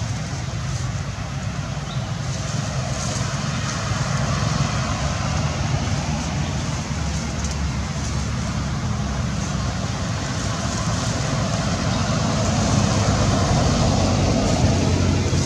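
Steady outdoor background noise with a low rumble, growing slightly louder near the end.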